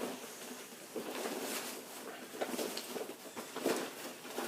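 A nylon backpack pouch being unzipped and handled: a string of short, irregular rustling scrapes.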